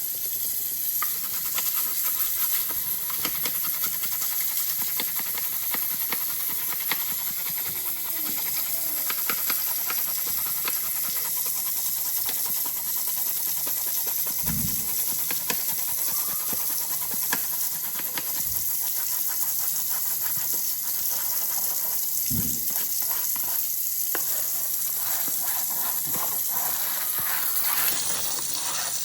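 Kitchen tap running steadily as a dishwasher filter is washed out under it in the sink: an even hiss of water, with a few soft bumps near the middle.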